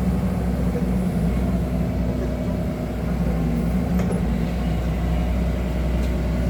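Excavator engine running steadily with a low, even hum.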